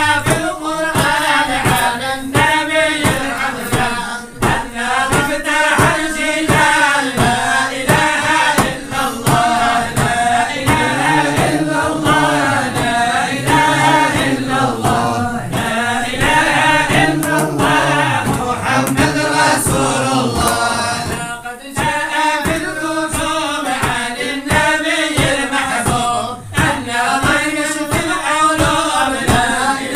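A group of voices chanting a devotional song in chorus, in melodic phrases of a second or two with brief breaths between them.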